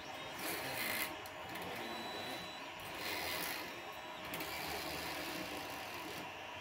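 CoreXY 3D printer's toolhead carriage and gantry pushed by hand across the bed, a faint rolling hiss of the carriage sliding on its smooth rods and the belts running over their pulleys, in several gentle strokes. The motion runs smoothly, the new belts moving freely without binding.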